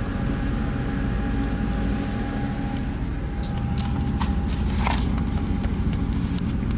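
Boat's engine droning steadily from on board, with a low rumble and a thin steady whine; from about three seconds in, scattered sharp clicks and rattles.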